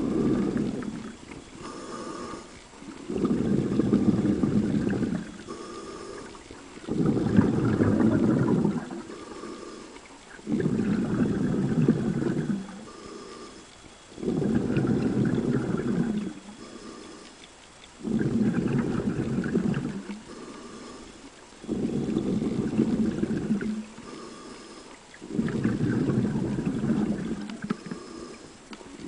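A scuba diver breathing through vintage scuba gear underwater: a quieter inhale with a thin whistle, then a longer, louder rumble of exhaled bubbles, repeating about every three and a half seconds, eight breaths in all.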